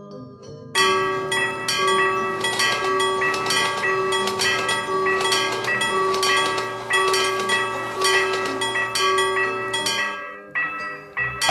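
Railroad crossing warning bell ringing in rapid, repeated dings. It starts about a second in, breaks off briefly near the end, then starts again.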